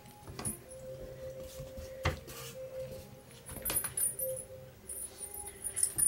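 English Cocker Spaniel puppy's scrabbling on a wooden floor while tugging a rope toy: scattered light clicks and patters, with a few sharper knocks about two seconds in and near the end.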